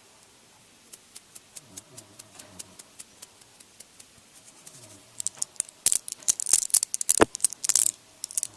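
ASMR handling sounds: a run of light, sharp taps, a few a second, then from about five seconds in a louder stretch of crinkling with a sharp knock about seven seconds in.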